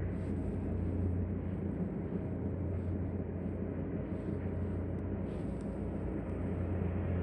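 Steady low drone of an engine running at a constant speed, with a deep hum and even background noise.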